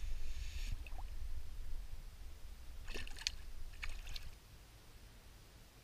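Water splashing as a released smallmouth bass goes back into the lake beside the boat and kicks away. There is a short wash of water at the start and a few quick, sharp splashes about three to four seconds in.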